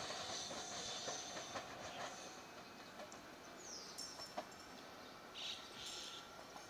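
Electric train running on the rails, a steady whine with light clicks from the wheels, fading after about two seconds. A few short high-pitched chirps follow near the end.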